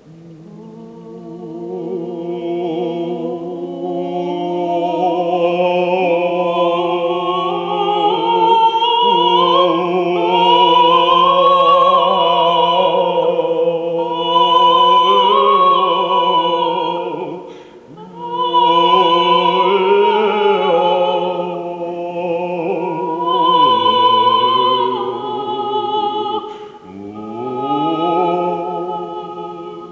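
A woman singing a wordless, gliding vocal line with long held notes in an operatic voice, over a steady low drone. She breaks off briefly twice.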